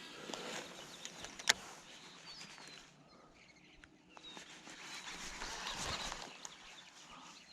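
Outdoor ambience with a few short bird chirps, rustling noise that swells and fades, and one sharp click about a second and a half in.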